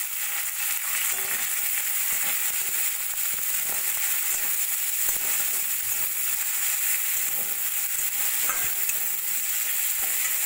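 Sliced onions sizzling steadily in hot oil in a kadai, stirred and scraped around the pan with a metal spatula.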